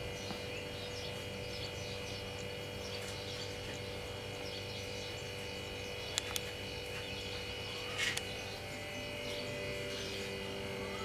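Background ambience: a steady hum with faint bird chirps, and two short clicks about six and eight seconds in.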